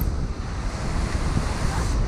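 Surf washing and breaking onto a sandy beach, with wind rumbling on the microphone.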